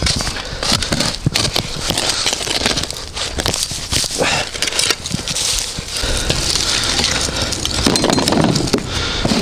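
Shovel digging into earth: repeated scrapes and short knocks of the blade in the soil.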